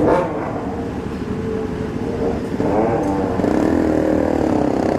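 Several sport motorcycle engines idling and revving together over a steady rumble, with the pitch rising and falling in the second half.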